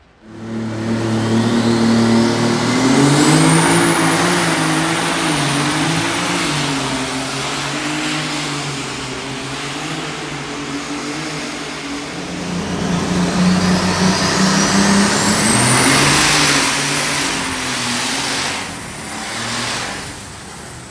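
Pulling tractor engine at full throttle during a tractor pull run. Its note climbs, and a high whistle rises steeply twice, about two seconds in and again about thirteen seconds in. The sound fades near the end.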